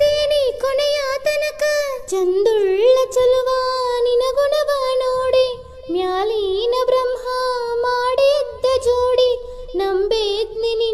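A high-pitched voice singing a Kannada song, its melody bending and ornamented, in phrases that pause briefly about two, six and ten seconds in.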